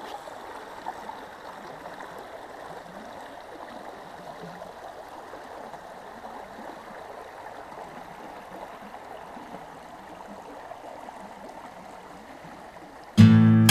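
Shallow creek running over rocks: a steady burble of flowing water. Guitar music cuts in near the end.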